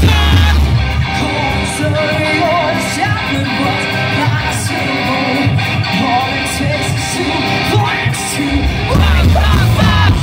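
Live rock band playing loud through a festival PA: distorted electric guitars, bass and drums, with a singer yelling into the microphone. The heavy low end drops away about a second and a half in and comes back near the end.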